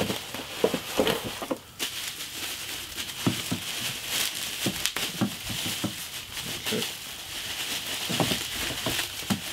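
Plastic bubble wrap crinkling and rustling as it is handled and peeled open, with many small crackles and a few soft knocks.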